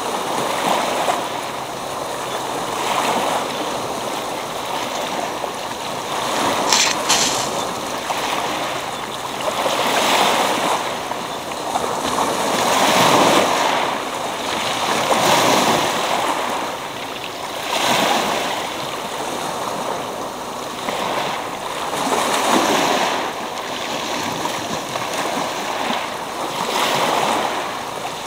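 Choppy sea surf breaking and washing over a pebble beach, a continuous rush that swells and ebbs every two to three seconds. A short, crisper hiss stands out about seven seconds in.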